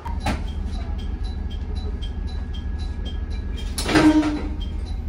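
KiHa 40 diesel railcar running, a steady low rumble heard from inside the car near the driver's cab. A light regular ticking comes about three times a second over it, and a short louder hiss comes about four seconds in.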